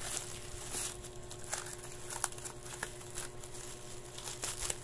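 Packaging wrap rustling and crinkling as it is pulled and unwound by hand, with scattered small crackles and ticks.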